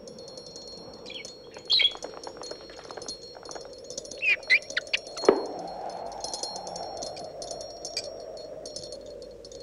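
High tinkling chimes, with a bird chirping in short gliding calls twice, about a second in and again around four seconds in. A single sharp knock comes just after five seconds and is the loudest sound.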